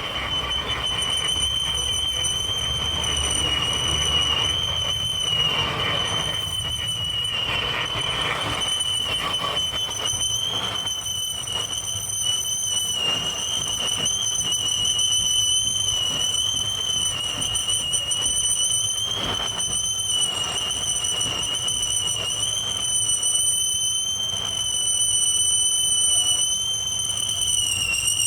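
A steady high-pitched mechanical whine, wavering slightly in pitch, over a low hum.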